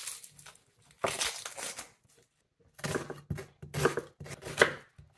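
A kitchen knife cutting through a raw onion on a wooden cutting board, with crisp crunching and tearing cuts. There are a couple of cuts in the first two seconds, then a quicker run of cuts in the second half.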